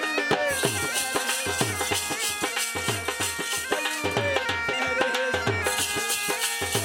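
Saraiki folk music on a bagpipe (been), its melody played over a steady drone, with a dhol drum beating a driving rhythm of stick strokes and deep bass thumps, about two a second.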